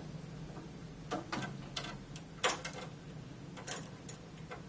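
About half a dozen sharp metallic clicks and taps from a screwdriver and screws against the sheet-metal frame and cable guard of a tape library's front panel as its mounting screws are taken out. The loudest is about two and a half seconds in, over a low steady hum.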